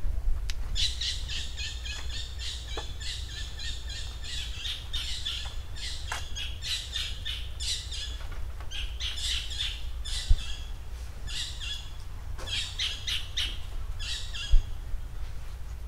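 Birds chirping and trilling in quick bursts of high calls, almost without pause, over a steady low rumble. Two dull thumps, one about ten seconds in and one near the end.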